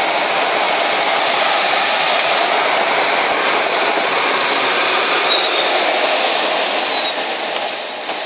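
Air rushing over the canopy of a Schleicher ASK 21 two-seat glider in aerobatic flight: a steady rushing noise that eases slightly near the end.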